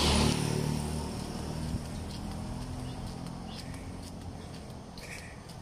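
Two small motorcycles passing close by, their engines loudest at the start and fading away over the first second or two. After that come faint, irregular footsteps on the paved road over low traffic noise.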